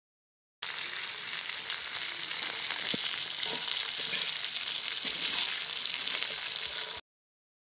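Short broken vermicelli and sliced onion sizzling as they fry in oil in a pot, while a metal slotted spatula stirs through them with a few sharp ticks. The sizzle starts suddenly just after the beginning and cuts off suddenly near the end.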